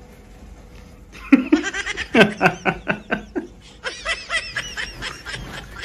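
Laughter in rapid repeated bursts, starting about a second in after a quiet moment, with higher-pitched giggling toward the end.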